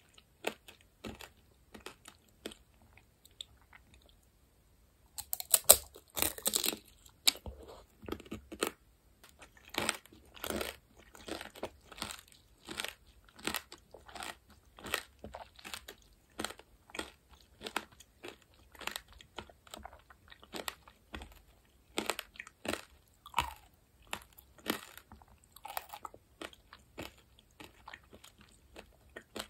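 Close-miked crunching of tanghulu, fruit in a hard, glassy candy shell: a loud cracking bite about five seconds in after a brief lull, then steady chewing crunches, one or two a second.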